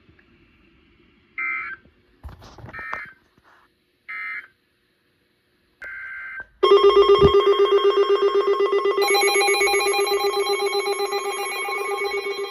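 Short chirps of alert data tones at the end of a weather alert broadcast. About six and a half seconds in, a loud electronic alarm starts: a rapidly pulsing multi-note tone that keeps going.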